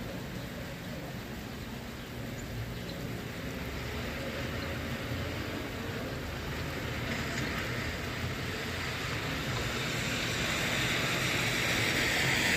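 Traffic on a rain-wet street: a low steady rumble, with tyre hiss on the wet road swelling from about halfway through and peaking near the end as a vehicle passes.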